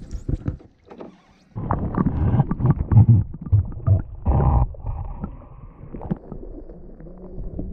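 A concrete block anchor on a rope being lowered into lake water, with a few splashes at first. From about one and a half seconds in, the microphone is under water, giving loud, low, muffled underwater noise.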